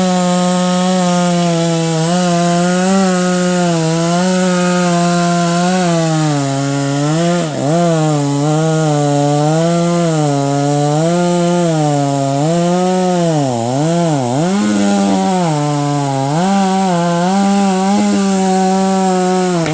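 Chainsaw running near full throttle while cutting wood, its engine pitch wavering as the chain loads and unloads, with a few sharp dips as it bogs in the cut around the middle. Right at the end the throttle is released and the engine pitch falls away.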